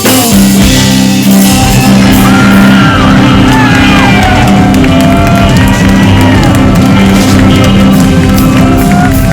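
Rock band playing live, a chord held and ringing on after the drum hits stop, with audience members whooping and shouting over it.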